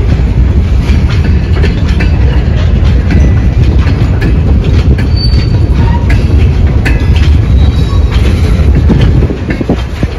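Freight train of gondola cars rolling past close by: a steady, loud rumble with repeated clicks of wheels over the rails and a brief wheel squeal about five seconds in. The rumble gets quieter near the end.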